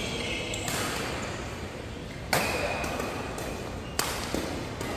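Badminton rackets hitting a shuttlecock in a doubles rally: three sharp smacks about a second and a half apart, the middle one loudest, with a fainter hit just after the last, echoing in a large hall.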